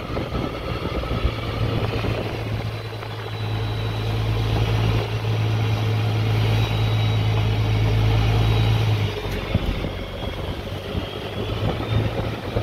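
Fishing boat's engine running steadily while the boat is underway, a strong low hum over the rush of water along the hull. The hum drops away about nine seconds in.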